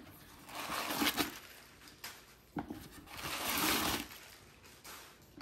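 Tissue paper rustling as it is pulled out of a leather handbag, in two stretches, with a short sharp click between them.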